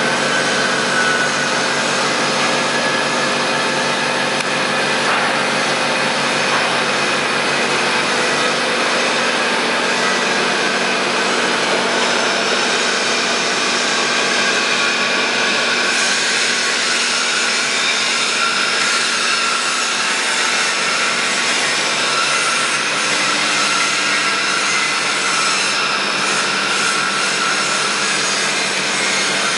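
Castel CNC horizontal boring mill with a 130 mm spindle, running under power. It makes a steady machine sound: several held tones over a broad hiss, with the tone shifting slightly about halfway through.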